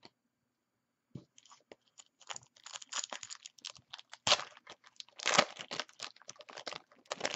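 Foil trading-card pack wrapper being torn open and crinkled, a dense run of crackling and rustling that starts about a second in and is loudest around the middle.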